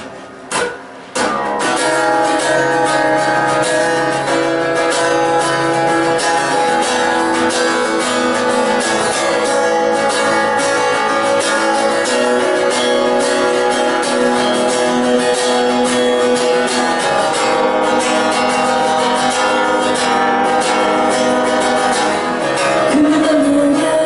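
Acoustic guitar strummed in a steady chord pattern as a song's intro, after a few short separate strokes in the first second.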